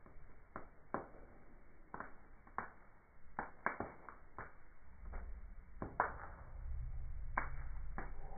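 Wood fire crackling, slowed down: scattered sharp pops at irregular intervals, over a low rumble that comes up about halfway through.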